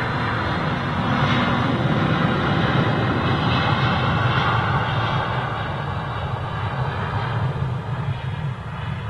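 Airbus A330-900neo's twin Rolls-Royce Trent 7000 turbofans at take-off thrust as the airliner accelerates down the runway and rotates. The engine noise swells about a second in, is loudest for the next few seconds with a high whine over it, then eases slightly.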